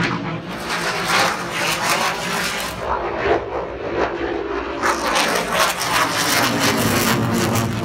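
Jet engine noise from a Blue Angels F/A-18 flying overhead, a steady loud rush.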